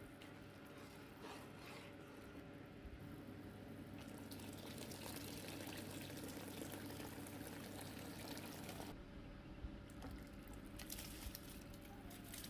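Water running or being poured in a kitchen: an even hiss that comes in about four seconds in and stops abruptly some five seconds later, over a steady low hum.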